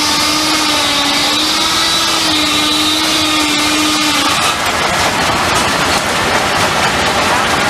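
Steam-powered sawmill running: a loud, continuous mechanical din with a steady humming tone that stops about four seconds in.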